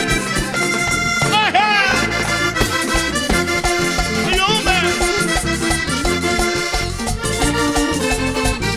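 Vallenato band playing an instrumental passage, with the accordion leading over a steady beat of percussion and bass.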